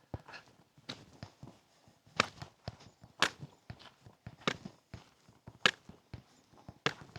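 A hiker's footsteps crunching on the trail at a steady walking pace, a firm step roughly every second with lighter scuffs between.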